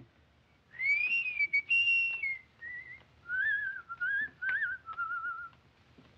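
A person whistling a short, wandering tune in several phrases with brief gaps, ending in a quick wavering trill.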